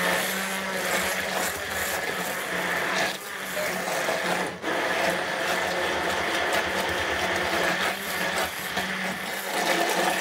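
Handheld immersion blender motor running steadily, its blade puréeing strawberries in a plastic beaker to a smooth, smoothie-like liquid, with a couple of brief dips in the motor sound about 3 and 4.5 seconds in.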